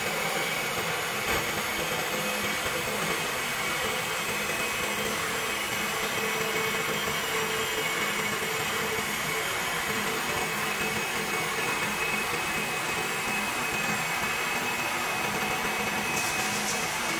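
CNC wood lathe running, its motors whirring steadily while the cutters shave two spinning wooden blanks into turned spindles.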